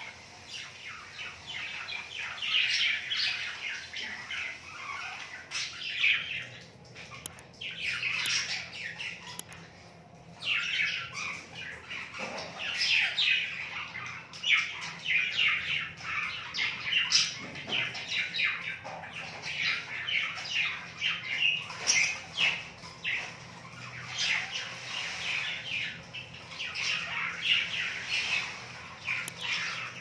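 Budgie chattering in a fast stream of short chirps and squawks, in bouts broken by brief lulls.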